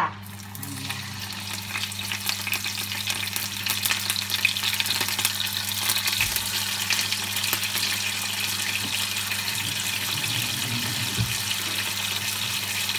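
Cream dory fillets sizzling and crackling in hot oil in a frying pan, the sizzle growing louder over the first few seconds as more fillets are laid in, then holding steady.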